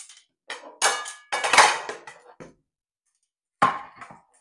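Kitchen utensils clattering as they are handled: a run of sharp knocks and clinks, some with a short ring, loudest about a second and a half in, then a few more knocks near the end.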